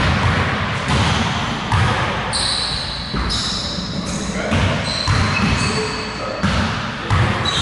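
Basketballs bouncing on a hardwood gym floor: a series of irregular bounces, roughly one a second, echoing in a large hall.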